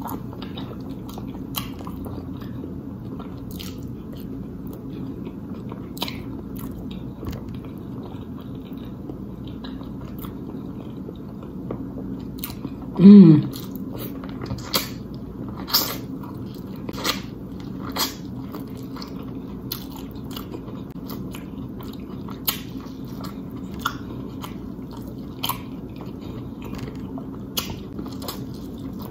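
Mouth sounds of eating a seafood boil: smacking, chewing and biting into corn on the cob, heard as scattered sharp smacks and clicks over a steady low hum. About halfway through comes the loudest sound, a short voiced 'mm' falling in pitch.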